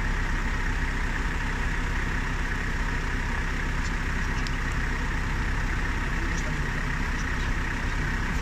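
Off-road 4x4's engine running steadily at low revs, with a few faint clicks about halfway through.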